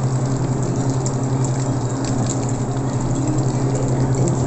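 Cream sauce simmering in a stainless steel pan, a soft crackling and bubbling over a steady low electrical hum from the cooker.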